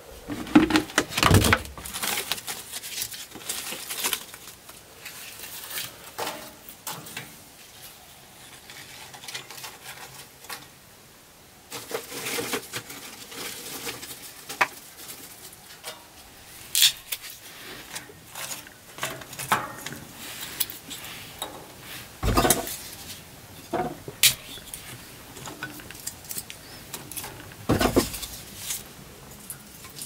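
Scattered knocks, clicks and rustles of hands at work: round plastic containers handled and set down, then split kindling laid into a small metal wood stove's firebox. A few sharper knocks stand out, about a second in and twice in the last third.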